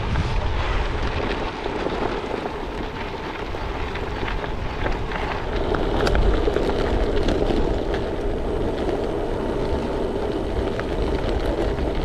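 Wind rumbling on the microphone over the steady rolling noise of gravel bike tyres on a loose gravel track, with scattered small ticks from the stones.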